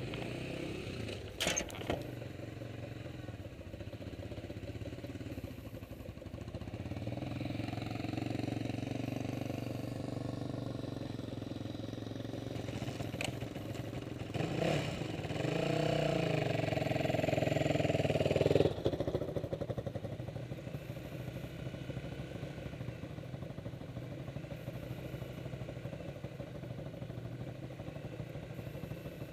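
Off-road motorcycle or quad engine running at idle, revving up for about four seconds past the middle and then dropping back suddenly to idle. There are a couple of sharp knocks near the start.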